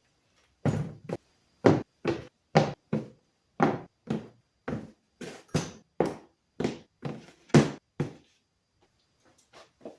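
A quick series of sharp knocks and taps, two to three a second, that stops about eight seconds in.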